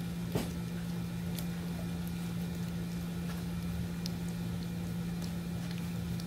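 Puppies lapping milk from a stainless steel bowl, faint wet ticks and one sharper click just under half a second in, over a steady low hum.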